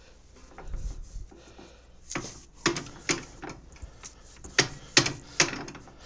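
Irregular sharp metal clicks and knocks, two or three a second from about two seconds in, from a snowblower's friction-drive hex shaft and gear being worked by hand while old grease is wiped off with a rag. A low thump about a second in.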